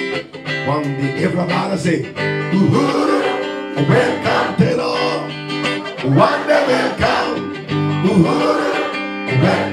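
A large choir singing a gospel song together, with guitar accompaniment.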